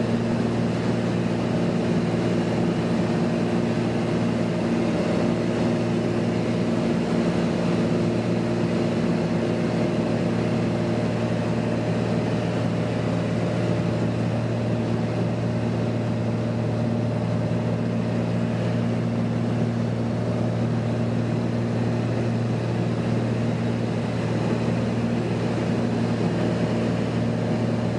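Single-engine light aircraft's piston engine and propeller droning steadily, heard inside the cockpit, on approach to land. A few of its higher tones fade partway through and come back near the end.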